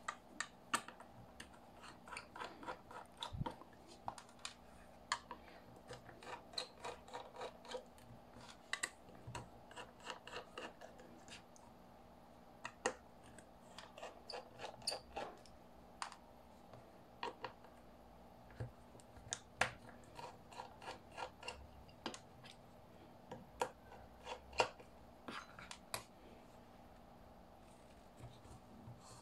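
Irregular small clicks, taps and short scrapes of hand tools on a hard drive's casing as it is being opened, over a faint steady hum.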